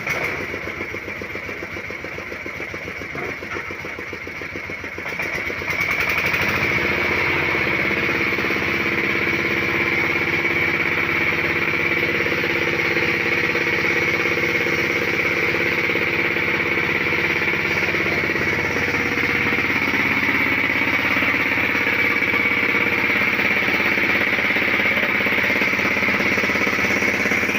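Engine-driven corn sheller (maize thresher) running steadily while corn is fed through it. About six seconds in it grows louder and then holds at that level.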